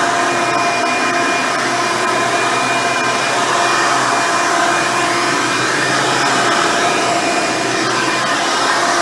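Hoover Elite 350 upright vacuum, fitted with a 7-amp motor and 7-blade fan, running steadily while vacuuming carpet with its dual-row bristle brush roll. A steady whine sits over the rush of air.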